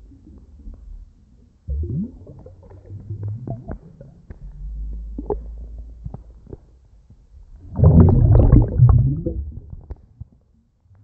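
Air bubbles from a freediver exhaling underwater to blow bubble rings, picked up on an underwater camera: low, muffled gurgles, with the loudest burst of bubbling about eight seconds in.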